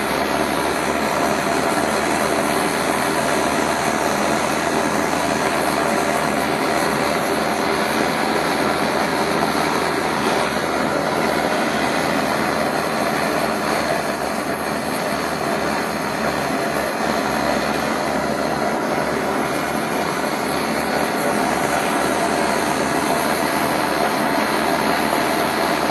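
Handheld gas blowtorch burning with a steady, unbroken hiss, its flame held on the tip of a bullet standing in a pan of water to anneal it.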